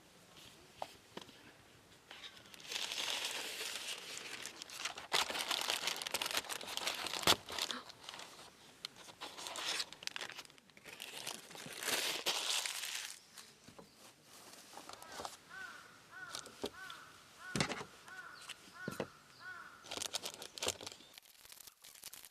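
Crinkling and rustling, like packaging or wrapping being handled, in bursts for several seconds. Later comes a run of short, quickly repeated high-pitched bird calls.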